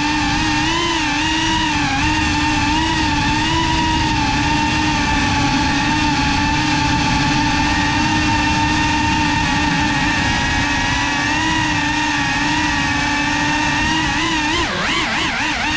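GEPRC CineLog35 FPV cinewhoop's motors and propellers whining steadily in flight, the pitch wavering a little with the throttle. Near the end the pitch swings rapidly up and down as the throttle is worked.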